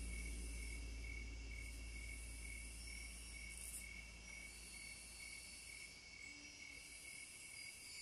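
Faint ambient background track: a steady high pulsing chirp repeating about three times a second, with soft airy swells every couple of seconds over a low drone that fades away by the middle.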